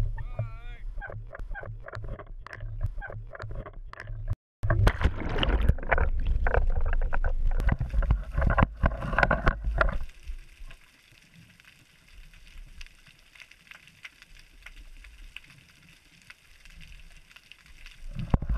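Water splashing and sloshing around a kayak as it is paddled on the ocean, with knocks from the paddle and hull, busiest in the first half; after a cut about ten seconds in, it drops to a quiet, steady hiss of water and wind.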